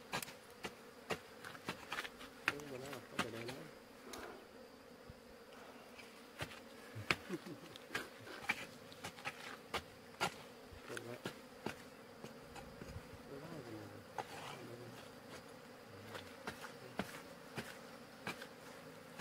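Wild bees buzzing in a steady drone while a hoe chops into stony soil, making irregular sharp knocks about once a second.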